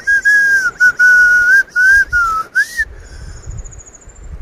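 A person whistling a short tune of about eight notes that slide slightly up and down, lasting about three seconds. Near the end there is a faint, high, rapid trill.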